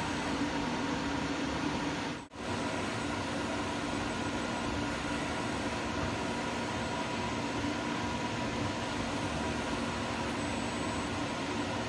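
Machine-shop boring equipment running steadily while a Ford Kent cylinder block is bored out, a continuous hum and hiss with a few steady tones. The sound drops out abruptly for a moment about two seconds in.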